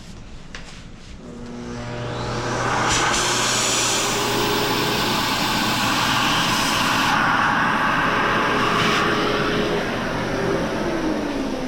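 Dremel rotary tool with a cutting wheel spinning up to a steady high whine and cutting, with a rasping grind that shifts as the wheel bites, then winding down near the end.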